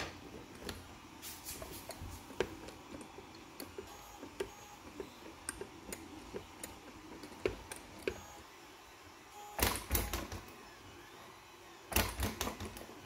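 Plastic clicks and knocks from a WPL B36 RC truck's chassis, wheels and suspension being handled and flexed by hand, with two louder clusters of knocks, one about two-thirds through and one near the end as the truck is set down on a wooden table.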